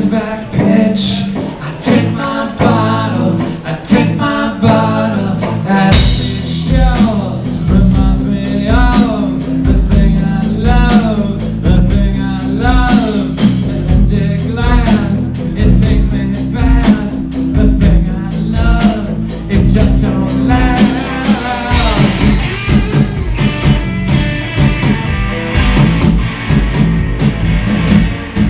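Live band playing a bluesy rock song: singing over acoustic guitar, upright bass and drum kit. The full band comes in strongly about six seconds in, and the singing gives way to an instrumental passage a little past twenty seconds.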